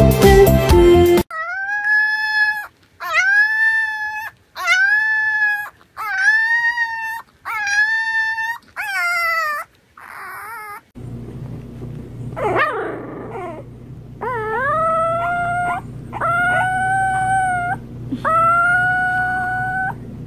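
Puppies howling: a run of about six long, even howls, then after a short break a bulldog puppy howling five or six more times over a low hum. Music plays briefly at the start.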